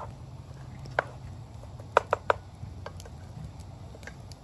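Wooden spoon stirring chunky vegetable stew in a camping pot, knocking against the pot's rim and sides: single knocks about a second in and near three seconds, and a quick run of three about two seconds in.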